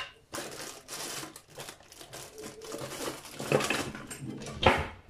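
Rustling and handling noise with light knocks as kitchen utensils are reached for, and a couple of sharper clinks of metal utensils near the end.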